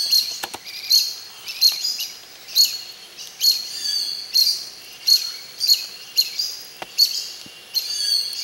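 A bird repeating a high, sharp call about once a second, each note a quick downward sweep.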